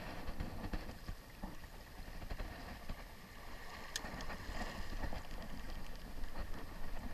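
Small waves lapping and splashing against shoreline rocks, with a low rumble of wind on the microphone. A single sharp click about four seconds in.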